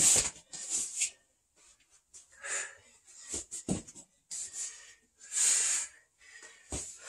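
A man breathing hard through the mouth during a bodyweight exercise, a forceful exhale about every second, the loudest at the start and again about five and a half seconds in. A couple of soft thumps of the body landing on foam floor mats.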